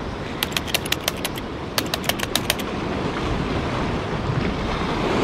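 Two quick runs of sharp clicks, six or seven each, in the first few seconds, over a steady rush of wind and sea.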